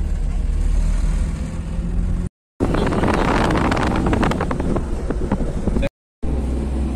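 Steady low rumble of a moving car, with wind buffeting the microphone during a louder, rougher middle stretch. The sound cuts out completely twice, briefly, about two seconds in and near the end.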